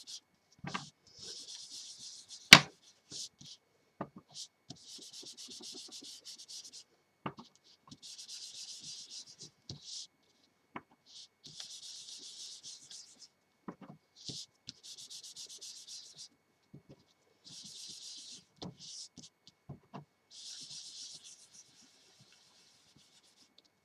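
Dried baby wipe rubbed in short spells of strokes over stamped cardstock, blending ink around the edges of paper masks. There is a dry hiss for a second or two at a time with brief pauses, small taps between, and one sharp tap about two and a half seconds in.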